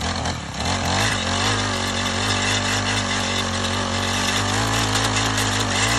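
Honda FG110 mini tiller's small four-stroke engine revving up from idle in the first second, then running steadily at high throttle as the tines churn into the soil.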